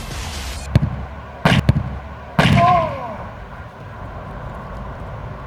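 A football kicked with a sharp smack, then two heavy thumps of the ball landing or striking something under a second later, followed by a brief falling cry.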